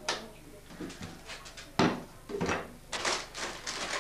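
Sharp knocks and clatter of household objects being handled and set down. The loudest knock comes a little under two seconds in, another follows about half a second later, and a hissy rustling noise runs through the last second.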